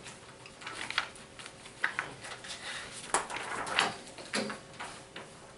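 Handling noises in a small room: a few scattered light knocks and clicks over a faint steady hum.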